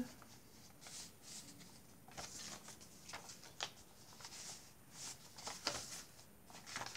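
Soft rustling and light taps of a handmade junk journal's paper pages and tucked-in cards being turned and handled. It comes as a scatter of brief rustles, with the louder ones about three and a half and five and a half seconds in.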